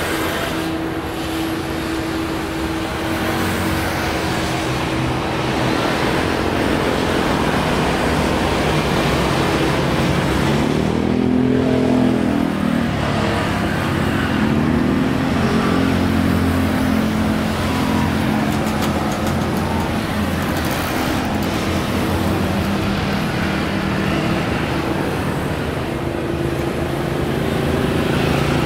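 Airbus A330-200 airliner taxiing, its twin jet engines running at low power: a steady rumble and whine. About eleven seconds in, a tone sweeps up and back down.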